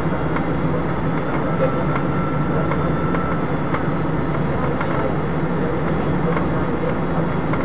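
Steady airliner cabin noise during descent: the engines and rushing air make a constant low hum and rush, with a few faint ticks.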